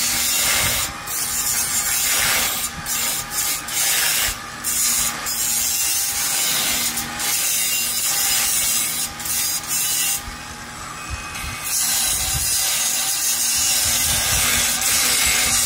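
Angle grinder grinding steel angle iron: a loud, hissing grind over the motor's whine, easing off briefly several times.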